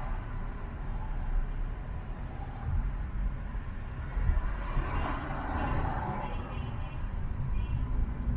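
Car driving through city traffic: a steady low rumble of road and engine noise, with a louder swell of passing traffic about five seconds in.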